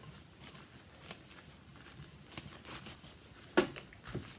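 Faint rustling and snapping of nitrile gloves being pulled off the hands, then a sharp knock about three and a half seconds in, with a softer one just after.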